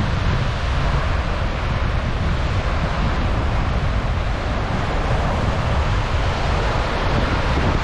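Small waves breaking and washing up the beach in a steady surf wash, with wind rumbling on the microphone.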